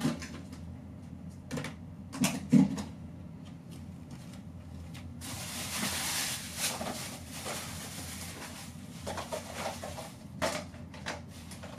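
Plastic food containers knocking and clattering as they are handled, with a few sharp knocks in the first three seconds and a stretch of bag rustling about five to seven seconds in.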